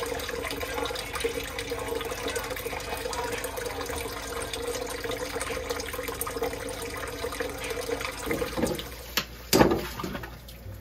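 Kitchen faucet running into a sink with a steady hum, while walleye fillets are rinsed under the stream. The hum stops about eight seconds in, and a brief louder splash comes near the end.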